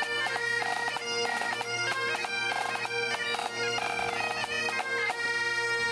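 A pipe band's Great Highland bagpipes playing a tune: steady drones held under a melody of quickly changing notes.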